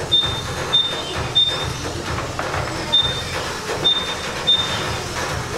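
Short, high electronic beeps from the lap-timing system, about six at uneven spacing, each as a car crosses the timing line. Underneath is the continuous noise of Kyosho Mini-Z RC cars running on the track.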